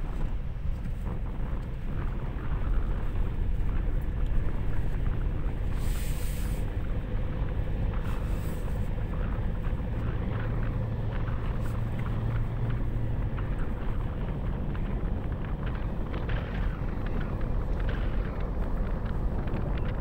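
Ford Ranger FX4 Max pickup driving: steady engine and road rumble with many small rattles. Two brief hisses come about six and eight and a half seconds in.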